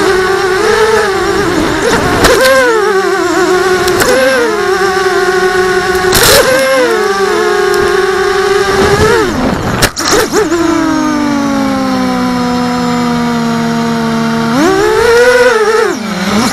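Racing quadcopter's electric motors whining close to the onboard camera, the pitch swooping up and down with each throttle change, with a few short rushes of noise. About two-thirds of the way through the motors drop to a lower, steadier hum, then rise sharply again near the end.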